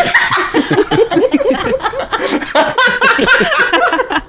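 A crowd of people laughing together: many overlapping voices laughing in short, quick pulses.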